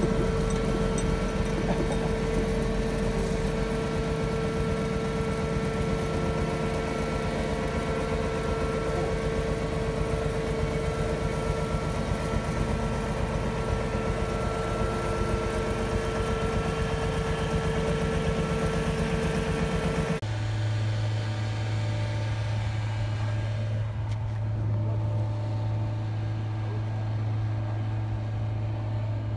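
Tracked excavator's diesel engine running steadily with a strong steady high whine while it hoists the chain saw machine on its rail frame. About twenty seconds in the sound changes abruptly to a lower, steady engine hum.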